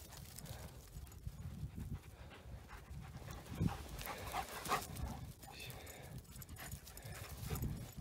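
Dogs moving and panting close by in dry stubble grass, with footsteps rustling and wind rumbling on the microphone. A couple of short, sharper sounds stand out about three and a half and nearly five seconds in.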